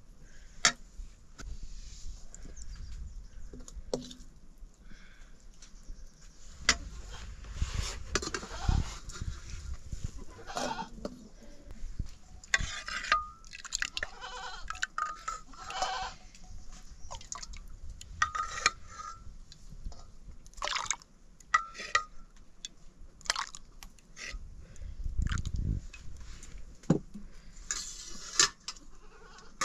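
Goats bleating several times, with scattered sharp clicks between the calls.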